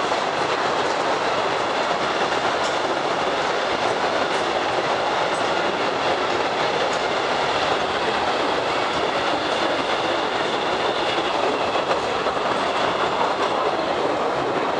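Postojna Cave's mini-train running along its track: a steady rumble and rattle of the moving cars, with a faint high whine over it.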